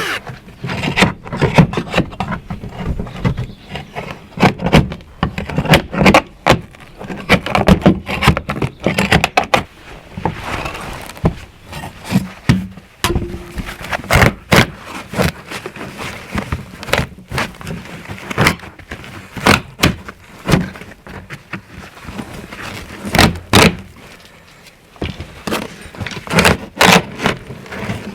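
Irregular knocks, clicks and scraping from hand work on a motorhome floor trim strip being pried loose from the carpeted floor.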